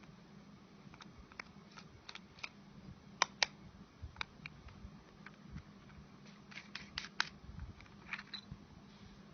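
Small irregular clicks and taps of a cheap plastic flashlight being handled and taken apart, with two louder clicks a little over three seconds in and a quick run of clicks around seven seconds, over a faint steady hum.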